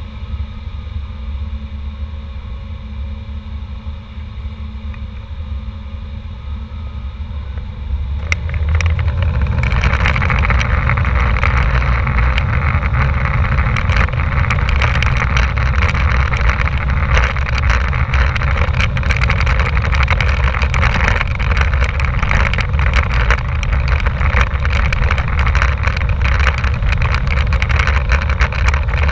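Airbus A320 jet engines heard inside the passenger cabin, idling with a low rumble and steady whine, then spooling up to takeoff thrust about eight seconds in. A loud, even rush fills the cabin as the takeoff roll begins, with frequent short rattles and knocks from the airframe rolling down the runway.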